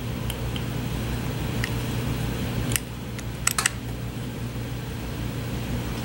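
A handful of light, sharp clicks, two of them close together about three and a half seconds in, as the parts of a two-stroke cylinder's power valve mechanism are moved by hand. They sit over a steady low background hum.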